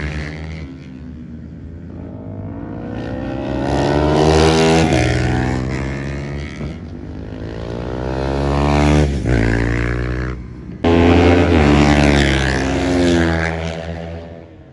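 Racing sport motorcycles passing at high revs, their engines climbing in pitch as they accelerate and dropping at each gear change. Several loud passes swell and fade, with a brief break and a sudden loud return about eleven seconds in.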